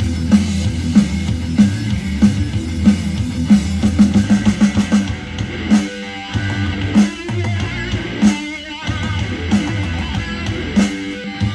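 Instrumental rock music with a drum kit and guitar, played back through a portable Bluetooth speaker for a sound test. The beat drops out briefly twice around the middle.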